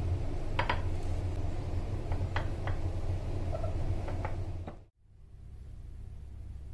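Light clicks of red grapes and a metal spoon against a small glass cup, a few separate taps over a steady low hum. Near the end the sound drops out suddenly and comes back as a quieter steady hum.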